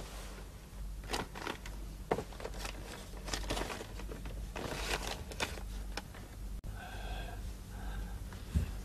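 Stiff paper rustling and crackling as a folded paper memorial is opened and its pages handled, over a low steady hum. About seven seconds in a short pitched sound comes twice, and a soft thump follows near the end.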